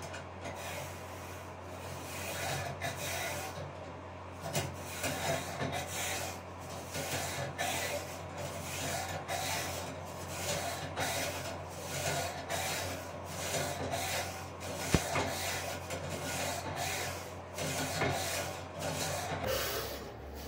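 Rhythmic hand rubbing strokes on a rusty rifle part, about two a second, over a steady low hum, with one sharp tap about three quarters of the way in.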